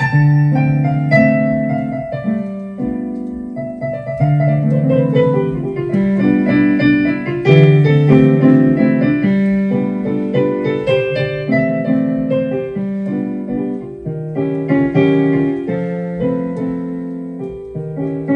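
Digital piano played solo: chords and a melody line in a slow song, each note striking and fading.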